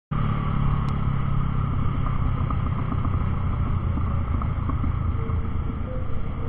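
Motorcycle engine running steadily under a heavy low rumble of wind on the bike-mounted camera's microphone while riding. It starts abruptly, with a short click about a second in.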